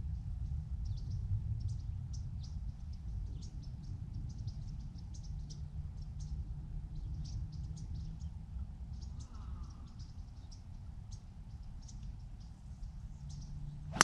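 Wind rumbling on an action camera's microphone, with many short, high bird chirps repeating over it. Right at the very end, a sharp crack of a golf club striking the ball off the tee.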